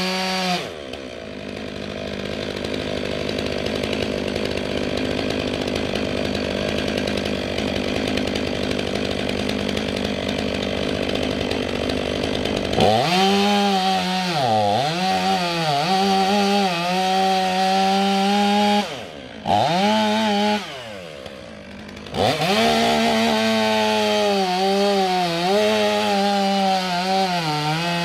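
Stihl chainsaw running at low speed for about twelve seconds, then revved up and run hard, its pitch sagging and recovering again and again as if loaded in a cut. Near the middle of that stretch it drops off briefly, then comes back up to speed.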